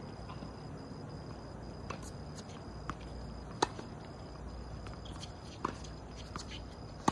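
Tennis ball struck by rackets during a doubles rally: a few sharp pops a second or so apart, the loudest about three and a half seconds in, over a steady low hum.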